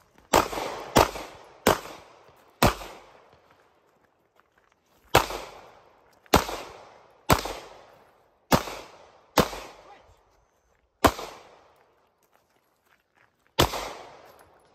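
Eleven pistol shots from a TISAS MAC 9 DS 9mm, each a sharp crack with a short echo. They come in quick pairs and threes, separated by pauses of about one to two and a half seconds.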